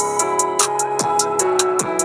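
Background music with a steady drum beat: deep kick drums that fall in pitch and quick hi-hat strikes over sustained melodic notes.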